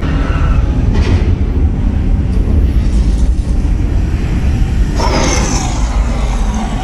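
Heavy, steady low rumble of a dark-ride vehicle and its show effects moving through a dark tunnel, with a burst of hissing noise about five seconds in.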